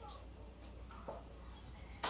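Spoon stirring a pot of sauce on the stove, with one light knock of the spoon against the pot about halfway through, over a low steady hum.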